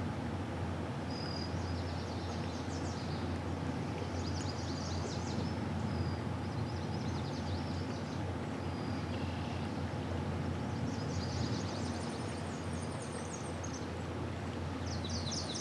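Small birds chirping in short trills every few seconds over a steady low hum and background noise.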